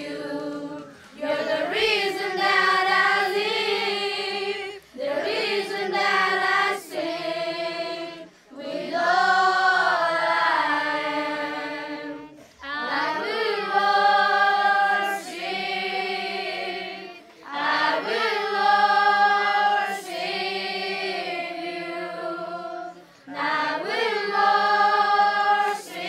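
A group of children singing together in chorus, phrase after phrase of held notes with short breaks between.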